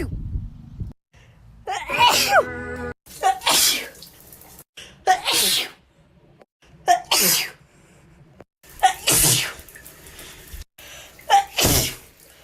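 A young woman's allergy sneezes, about six in quick succession. Each opens with a brief pitched intake and breaks into a sharp sneeze, and some are voiced.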